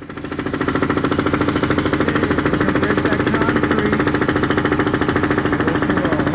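Jackhammer breaking up a concrete pool floor: it starts up and runs steadily with rapid, even blows.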